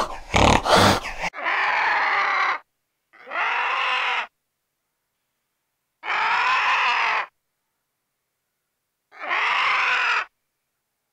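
A brief harsh growl from a fishing cat, then a vulture's drawn-out harsh call, repeated four times with about a second or more of silence between calls.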